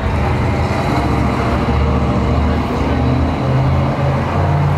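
Street traffic, with a nearby motor vehicle's engine running as a low drone that shifts in pitch every second or so.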